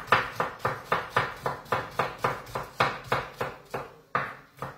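Kitchen knife chopping onion on a wooden cutting board: a steady rhythm of about four strokes a second, with a short pause a little before the end.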